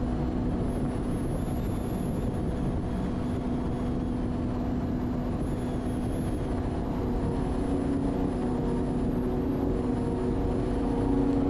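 Jet ski engine running at a steady pitch, with a constant rush of noise beneath it, getting a little louder near the end.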